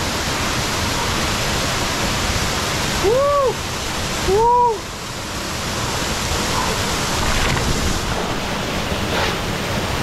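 Steady rush of a waterfall pouring into its plunge pool. Two short voice cries, each rising and falling in pitch, cut through it about three seconds and four and a half seconds in.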